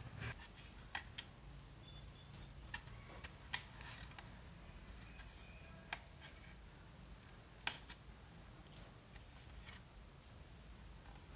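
Scattered light clicks and taps of small tools and parts being handled, with a few sharper ticks standing out, over a faint steady high whine.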